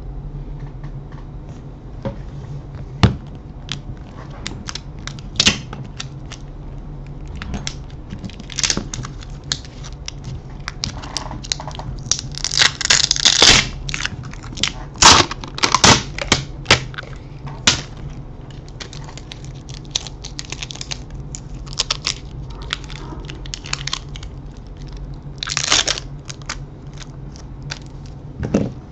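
An OPPO A3 smartphone being taken apart by hand, its back cover pried off: irregular plastic clicks and cracks, with denser crackling around the middle and again near the end. A low steady hum runs underneath.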